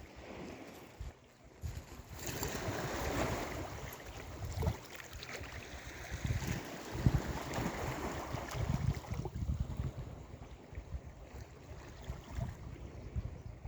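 Sea waves breaking: a rush of surf swells about two seconds in, runs on until about nine seconds and then dies down, with wind buffeting the microphone throughout.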